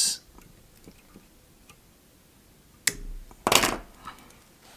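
Fly-tying scissors snipping off the excess mallard feather at the hook: one sharp snip about three seconds in, followed about half a second later by a short, louder burst of handling noise.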